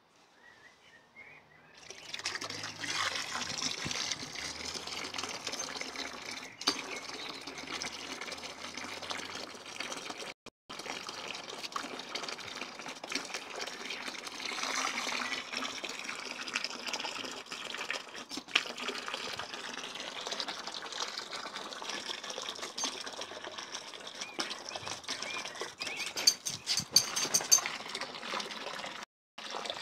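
Garden hose spray nozzle running, its jet splashing into a paddling pool as a steady hiss that starts about two seconds in and cuts off briefly twice.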